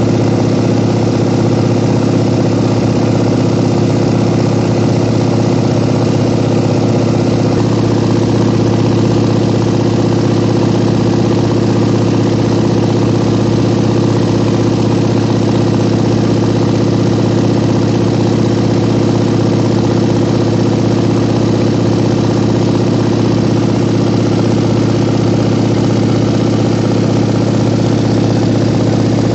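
Small plane's engine and propeller droning steadily in cruise, heard from inside the cabin.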